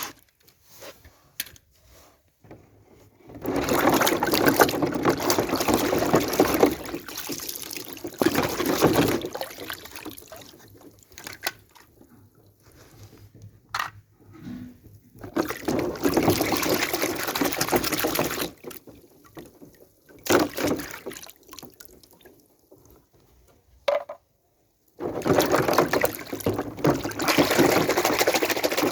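Liquid pouring in four stretches of a few seconds each, the longest early on and the last near the end, with short quiet gaps and a few small clicks between them.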